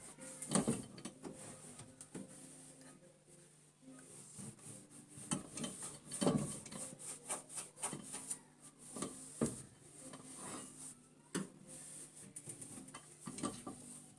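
The inside of a microwave oven being wiped and scrubbed by hand: irregular rubbing strokes with scattered clicks and knocks against the walls, over a faint steady hum.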